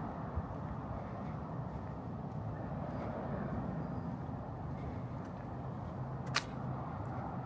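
Steady low hum of road traffic, with one sharp click about six seconds in.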